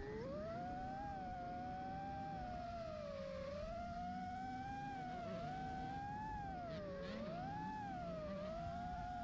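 FPV racing quadcopter's motors and propellers whining, the pitch rising and falling as the throttle changes. A fainter, lower engine-like hum wavers underneath.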